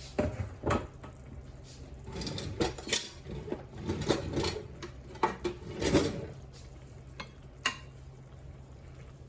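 A cooking pot, its lid and utensils clattering and clinking in a string of irregular knocks, densest between about two and six seconds in, with a last single clink near the end.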